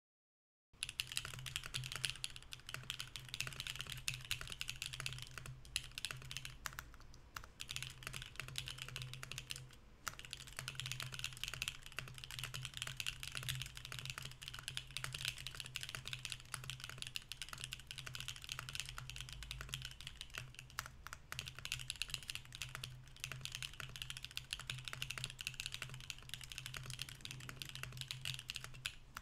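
Typing on a Mercury65 mechanical keyboard with BSUN Anya switches in an aluminium plate, no foam, and GMK Botanical R2 keycaps: a fast, continuous stream of keystrokes that starts just under a second in, with a few brief pauses.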